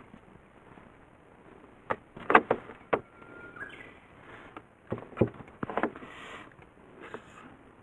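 Sharp slaps and knocks of a largemouth bass flopping and being handled on a plastic measuring board on a boat deck, in clusters around two seconds and five to six seconds in. A short, faint whistle-like tone sounds about three seconds in.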